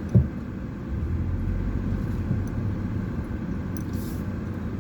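Steady low rumble of a car, with a single short knock just after the start.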